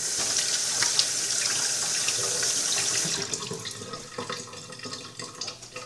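Kitchen tap running water into the sink, a strong steady hiss for about three seconds, then a weaker flow with a few light knocks.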